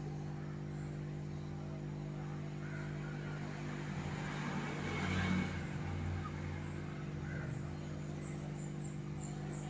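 A steady low hum, with a broad rush of noise that swells and fades about four to six seconds in.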